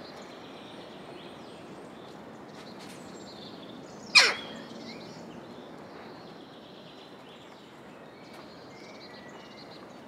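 A jackdaw gives one short call, falling in pitch, about four seconds in. Small birds chirp faintly over a steady outdoor background hiss.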